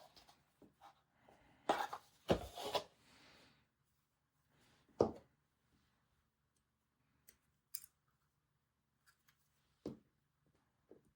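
Hands handling packaging and small plastic camera parts: a few seconds of rubbing and rustling near the start, a single knock about five seconds in, then scattered light clicks.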